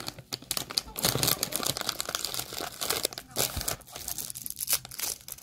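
Packaging crinkling and rustling as it is handled, in a rapid, irregular series of crackles.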